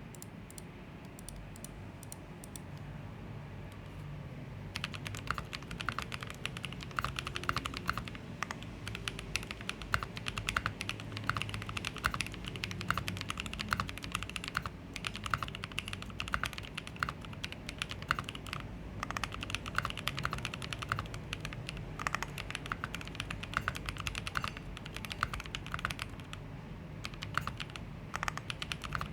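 Typing on a Mekanisk Fjell custom 60% mechanical keyboard with lubed Gazzew Boba U4T tactile switches. After about five seconds of low hum, a fast, continuous run of keystrokes begins, easing briefly twice.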